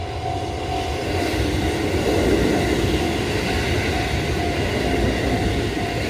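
Kotoden 1200-series four-car electric train running past on the rails, its wheel-and-rail rumble loudest about two to three seconds in and fading as it goes by. A level-crossing alarm dings repeatedly underneath.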